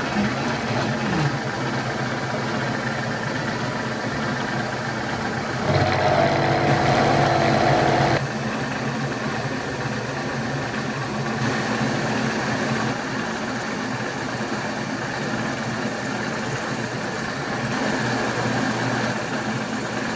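Milling machine running and cutting metal: an end mill roughing out a small block, then, after a sudden change about eight seconds in, a drill cutting holes in it.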